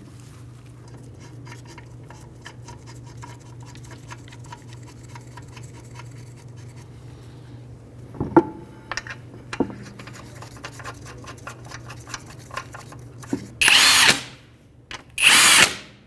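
Power tool run in two short loud bursts near the end, spinning lug nuts onto the rear wheel. Before that there is a low steady hum with faint rapid ticking and a couple of light clicks.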